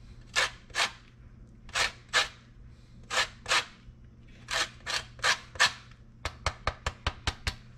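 Lemon rind being grated on a flat metal hand grater: short rasping strokes, mostly in pairs, then near the end a quick run of about eight sharp taps.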